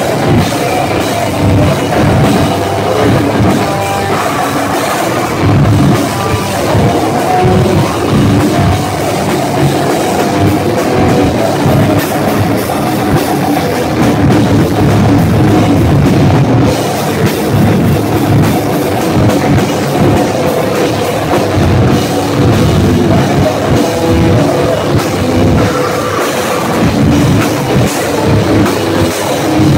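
Heavy metal band playing loud and without a break, drum kit and guitars.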